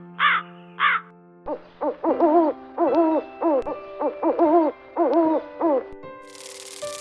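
Animal calls: two short harsh caws in the first second, then a quick run of about a dozen rising-and-falling calls, over steady held background tones.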